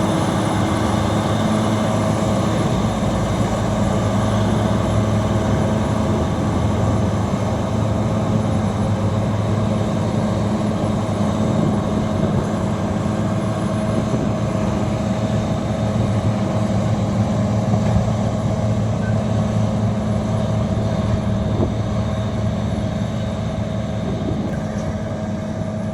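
Bulldozer's diesel engine running steadily, a continuous drone with a constant pitch.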